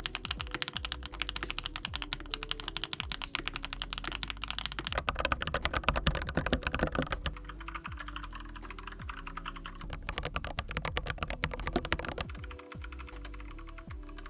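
Fast typing on a custom mechanical keyboard with Foxtail Sea Salt V2 linear switches and PBT keycaps in an aluminium tenkeyless case: dense runs of keystroke clacks that thin out for stretches, over soft background music.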